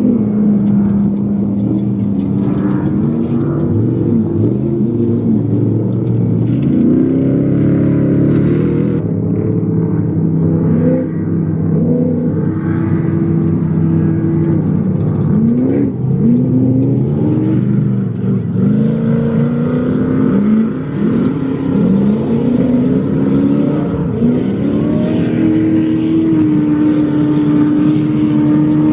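Off-road race vehicles' engines revving on the course, the pitch climbing, dropping and climbing again many times as they accelerate and shift, with a longer steady run near the end.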